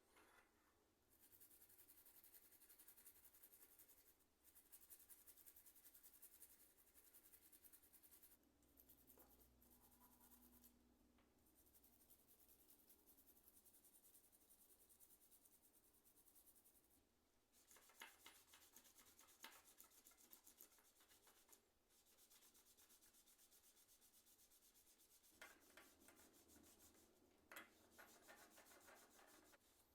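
Faint rubbing and scrubbing in stretches of several seconds with short pauses between them, as parts of an ICL membrane keyboard are cleaned by hand.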